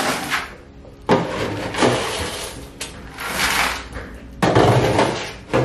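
Grain being scooped from a metal bin and poured into a plastic bucket: several rattling, hissing pours and scoop scrapes in quick succession, the loudest a little past halfway.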